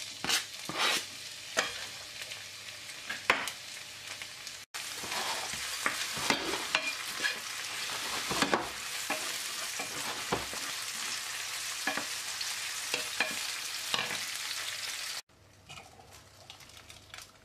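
Chopped onion frying in oil in a non-stick frying pan, a steady sizzle with stirring strokes through it, louder from about five seconds in. The sizzle cuts off sharply near the end, leaving only faint stirring.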